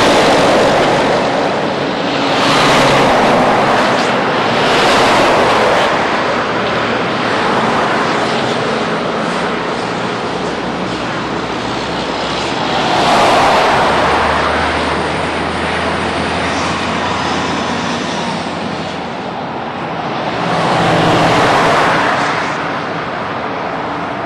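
Highway traffic passing close by: a steady rush with several vehicles swelling up and fading away one after another, and a low steady hum for a few seconds in the middle.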